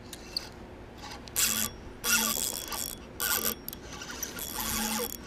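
Spinning fishing reel being cranked to retrieve line, its gears whirring in four short bursts of reeling.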